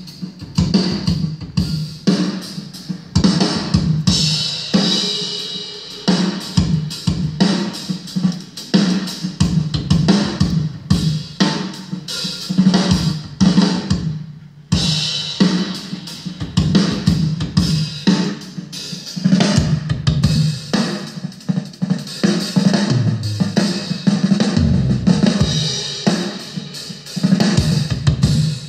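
Recorded drum-kit performance played back through a DIY plywood center-channel speaker with four 4-inch woofers and a tweeter: kick, snare and cymbals in a dense stream of hits, with a brief break about halfway through.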